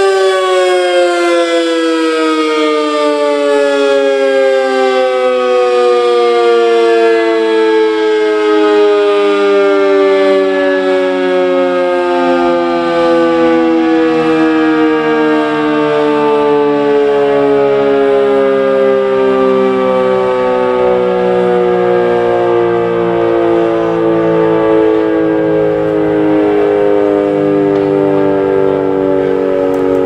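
Sentry 40V2T dual-tone rotating outdoor warning siren winding down after its Alert signal, the two chords of its tone falling slowly and steadily in pitch while it stays loud.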